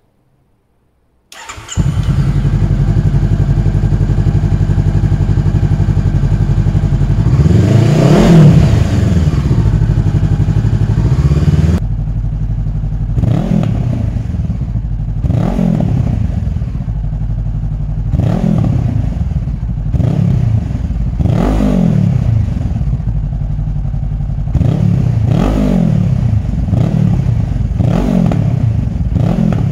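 Motorcycle engine started with its exhaust baffle removed: it catches about a second and a half in and idles steadily, swells in one longer rev about eight seconds in, then is blipped in a series of short throttle revs, often two close together.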